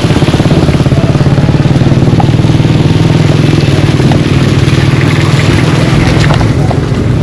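A vehicle engine running steadily close by, with a fast, even pulse.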